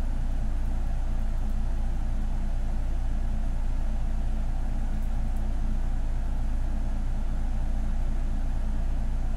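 A steady low hum that holds unchanged throughout, with no other sound standing out.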